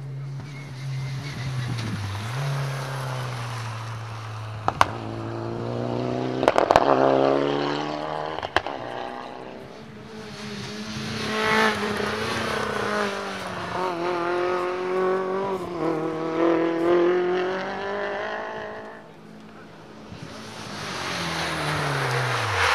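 Rally car engines at full throttle on a snowy stage, revving up and dropping through gear changes as the cars pass one after another, with several sharp cracks around five to nine seconds in. A lull near the end, then the next car's engine builds.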